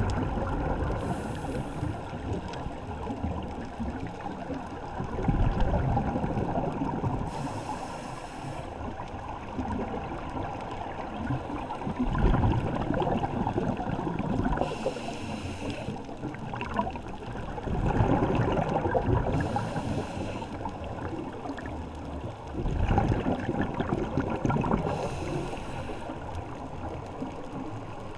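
Scuba diver breathing through a regulator underwater: a short hiss of each inhale roughly every five to six seconds, each followed a few seconds later by a rumbling gurgle of exhaled bubbles.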